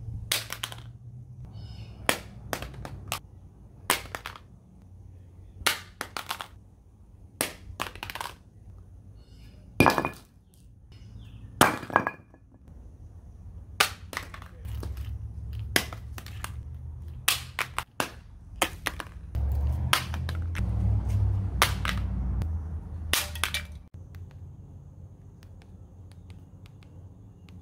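Blu Z5 plastic feature phone dropped again and again onto concrete: a long series of sharp clacks, many in quick pairs as it bounces, one every second or so. A low rumble comes in for a few seconds about two-thirds of the way through.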